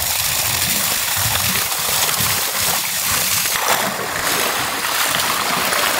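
A heavy stream of water gushing from a pipe and splashing steadily into a large metal wok of raw goat meat while the meat is washed by hand.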